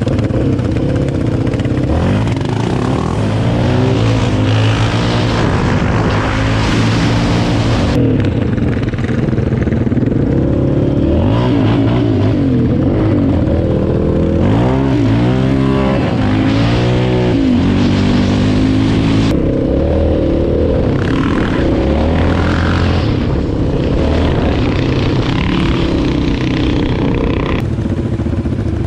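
Off-road vehicle engines running hard on a ride, revving up and down with quick rises and falls in pitch, the sharpest swings about halfway through. The sound changes abruptly three times.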